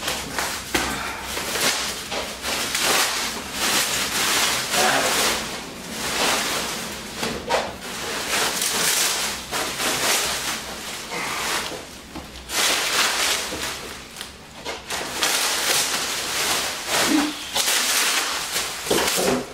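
Bubble wrap and plastic sheeting crinkling and rustling in irregular bursts as it is pulled off a new bucket race seat and bunched up.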